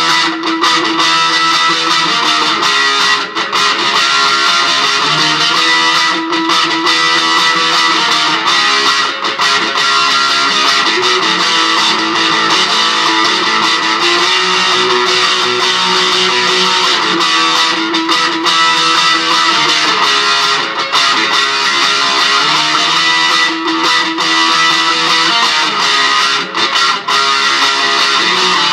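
Fender Esquire electric guitar with a Bare Knuckle Piledriver pickup, strummed chords changing every second or two.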